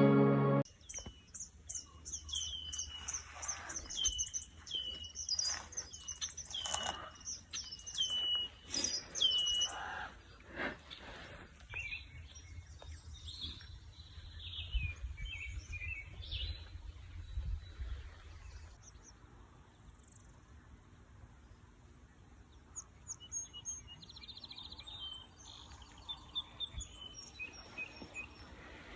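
Small birds chirping and calling, with a quick series of repeated sharp chirps for the first ten seconds, then scattered calls and a short buzzy trill later. A faint low rumble of background noise runs beneath.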